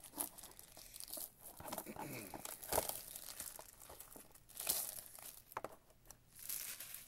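Clear plastic shrink-wrap crinkling and tearing as it is pulled off a trading card hobby box, in irregular crackles with louder rips about three and five seconds in.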